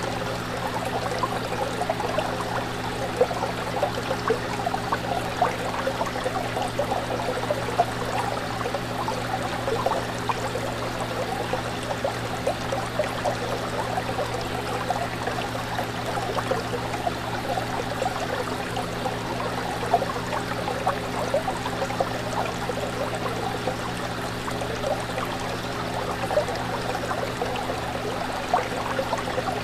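Aquarium water trickling and bubbling steadily, with many small bubble pops, over a steady low hum.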